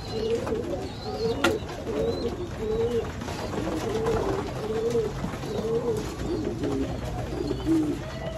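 Domestic pigeons cooing, several birds overlapping in a steady run of low warbling calls. A single sharp click comes about one and a half seconds in.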